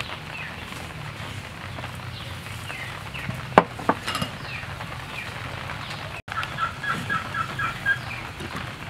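Domestic chickens clucking in the background, with a quick run of about seven clucks near the end, over a steady low hum. A single sharp knock about three and a half seconds in.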